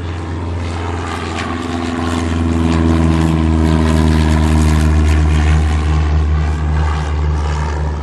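Small propeller airplane flying overhead, its engine drone steady in pitch and growing louder after a couple of seconds before easing off slightly.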